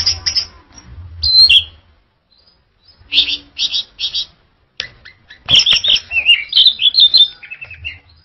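Orange-headed thrush (anis merah) singing loud whistled notes: a few short phrases, then three quick repeated notes, then a rapid, varied warbling phrase near the end.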